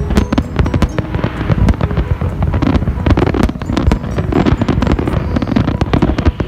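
Fireworks display going off: a dense, continuous barrage of overlapping bangs and crackles with no pause.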